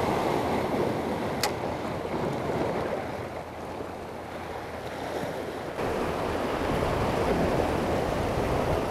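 Sea surf washing against a rocky shore, swelling and easing, louder again from just before six seconds in. A single short tick about a second and a half in.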